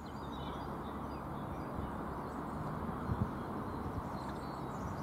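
Wind buffeting the microphone in a steady low rumble, with faint birds chirping early on.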